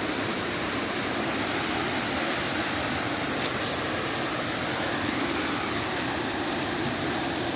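Steady rush of flowing river water over rocks, an even unbroken hiss with no change in level.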